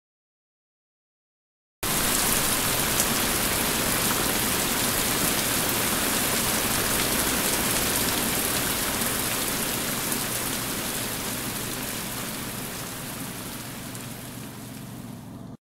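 Steady rain, starting suddenly after about two seconds of silence, slowly fading, and cutting off abruptly at the end.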